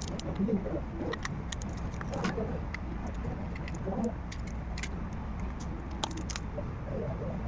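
Irregular light clicks and taps of small metal tools and plastic phone parts being handled during repair work, over a steady low hum.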